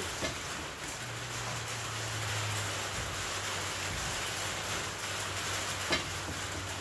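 Steady background hiss with a low hum that joins about a second in, and one light click about six seconds in.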